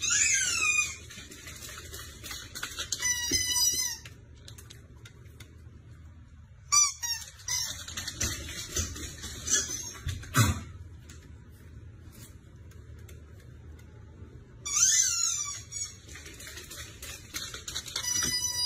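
A bird calling in short bouts of high chirps that slide down in pitch, each bout under a second, repeated every few seconds. There are a couple of sharp knocks around the middle.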